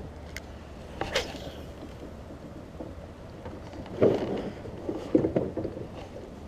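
Knocks and bumps of gear being handled in a small fishing boat over a steady low rumble: a sharp click about a second in, then a few dull knocks later on.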